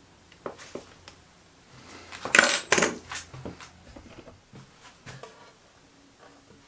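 Small metal workshop tools being handled: a few light clicks, then a brief metallic clatter about two and a half seconds in, followed by scattered small knocks.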